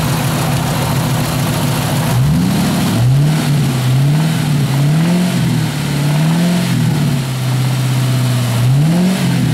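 1999 Ford Mustang GT's 4.6-litre V8 idling, then revved in repeated short blips from about two seconds in, with a steady stretch near the end. The owner suspects a rod knock.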